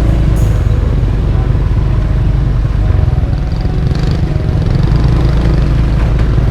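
Motorcycle engine running along a rough track, a loud low rumble whose note shifts a couple of times.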